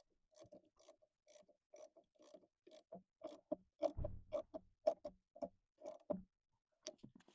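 Ratchet wrench clicking in short, even strokes, about two to three a second, as it tightens a battery cable terminal clamp onto a car battery post.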